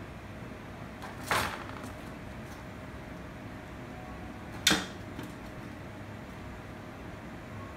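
A kitten hissing twice: two short, sharp spits about three seconds apart, the second shorter and louder than the first. The hissing is a defensive, angry warning.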